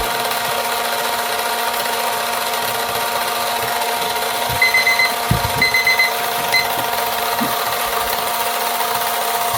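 Electric resin sander running steadily, a motor whine over a sanding hiss. About halfway through, a digital kitchen timer beeps in two quick runs of four high beeps and then once more, marking the end of the timed sanding interval.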